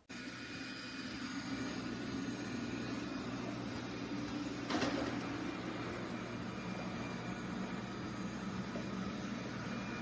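A motor-driven machine running with a steady whir and hum, with one short knock about five seconds in.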